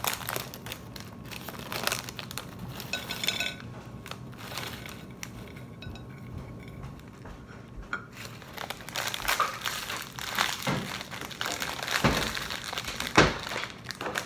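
Plastic snack wrappers crinkling as they are torn open and handled, in two spells with a quieter stretch between, and a few sharper knocks near the end.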